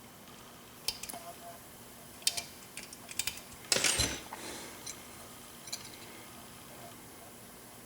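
Lock picks and a tension tool working the pins of a 7-pin Corbin Russwin mortise cylinder: scattered small metallic clicks, with a louder rattling scrape a little before halfway.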